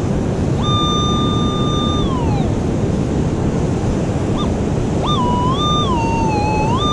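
Surf rushing steadily, with a Minelab metal detector's target tone over it: a clear tone comes in about half a second in, holds, then slides down in pitch and fades; about five seconds in it returns, wavering down and up in pitch. The tone signals a buried coin, an old quarter.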